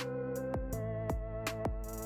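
Background music: an electronic instrumental with sustained synth notes over a steady beat.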